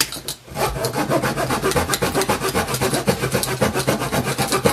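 Saw teeth on the spine of an East German AK74 bayonet rasping back and forth through a wooden dowel in quick, even strokes, biting steadily into the wood.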